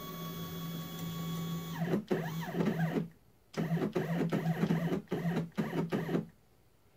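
Stepper motor driving a CNC mini mill's table: a steady whine that climbs in pitch as it speeds up and drops as it slows, lasting about two seconds. A brief rise-and-fall move follows, then several short stop-start jogs, stopping about six seconds in.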